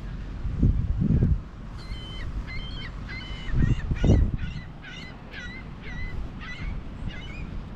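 A seagull calling a rapid series of short, honking cries, about two a second. Twice, early and midway, wind buffets the microphone with a low rumble.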